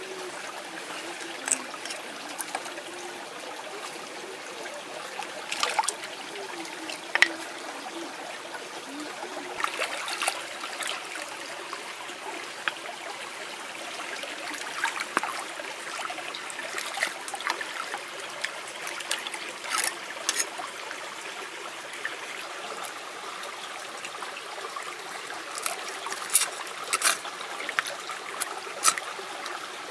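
Shallow stream trickling over stones, with a steel cleaver scraping and knocking against oyster shells held in the water, which gives scattered sharp scrapes and clicks.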